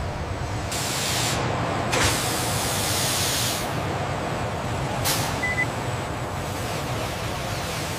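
Steady rumbling factory machinery with two bursts of hiss, a short one about a second in and a longer one of about a second and a half starting with a sharp click about two seconds in. Another sharp click about five seconds in, followed by a brief high beep.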